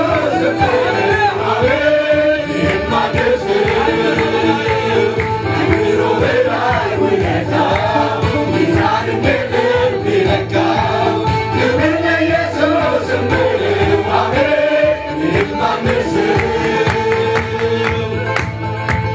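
Mixed church choir of men's and women's voices singing an Amharic gospel song, accompanied by an electric keyboard with a steady bass.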